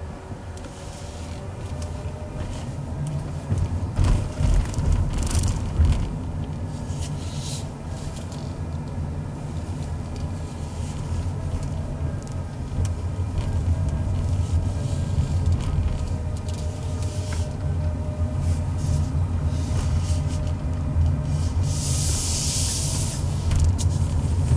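A car driving slowly, heard from inside the cabin: a steady low rumble of engine and tyre noise. A few thumps come about four to six seconds in, and a short hiss near the end.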